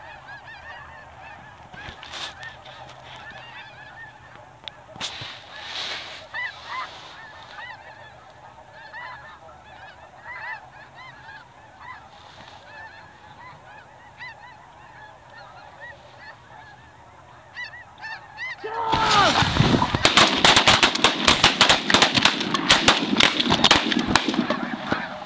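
A large flock of snow geese calling, a dense chorus of honks, muffled and fairly faint at first, then suddenly much louder about nineteen seconds in. Through the last six seconds, many sharp cracks of shotgun fire come in among the calls.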